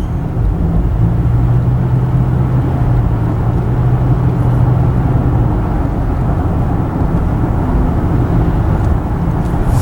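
Car driving along a road, heard from inside the cabin: steady engine and tyre rumble. A low hum joins it from about a second in and drops away a little past halfway.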